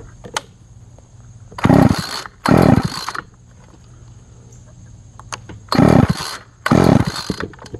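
Small two-stroke engine being pull-started: four short cranks of the recoil starter in two pairs, each lasting under a second, with the engine not catching and running in between.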